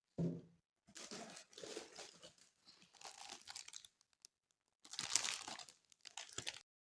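Packaging being crinkled and torn open by hand while an item is unwrapped, in two long stretches of crackling, after a dull thump at the start.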